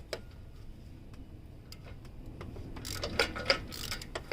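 Socket ratchet clicking in short runs as it is worked back and forth, unscrewing a loosened oxygen sensor from the exhaust. The clicks are sparse at first, then come faster and louder about three seconds in.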